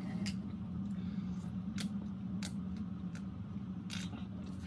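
Quiet room tone with a steady low hum and a scattering of faint clicks and taps as a man handles a soda can and drinks from it near the end.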